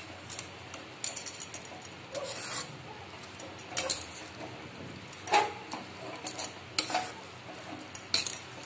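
Metal spatula stirring and scraping a thick, crumbly coconut and makhana laddu mixture around a kadhai, with irregular scrapes and clinks against the pan.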